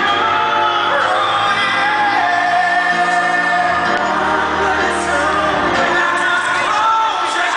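Live rock band with a male lead singer holding long, sustained notes over electric guitar and band accompaniment.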